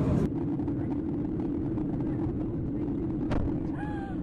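Steady airliner cabin noise, the even low rumble of the jet engines and airflow heard from a window seat. A single sharp click comes about three seconds in.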